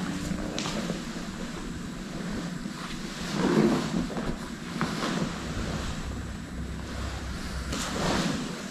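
Rustling and shuffling of two grapplers moving against each other on a mat, with louder scuffles about three and a half seconds in and again near the end.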